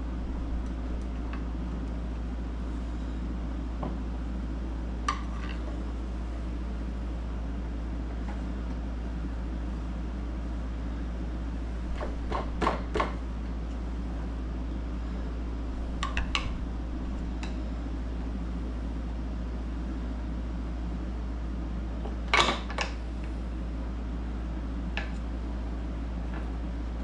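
Screwdriver tip clicking and scraping on metal in a few short, sharp bursts, some in quick pairs or threes, as it is worked behind a bent aluminium locking nail on a MerCruiser gimbal housing pivot pin to pry it straight. A steady low hum runs underneath.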